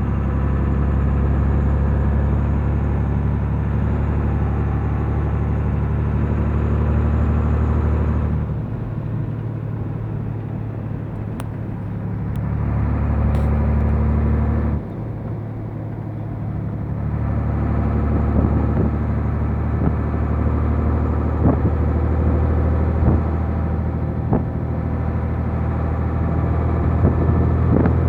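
Mercedes-Benz 1319 truck's turbocharged diesel engine running loud under load on the road. Its note falls off twice, about 8 seconds in and again suddenly about 15 seconds in, as the throttle eases or a gear changes, then pulls again. Small sharp knocks come through in the second half.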